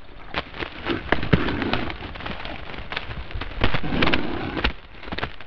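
A moose rubbing and bumping against a trail camera. Its fur scrapes over the housing and microphone in a rapid, irregular run of knocks and crackles, loudest about a second in and again around four seconds.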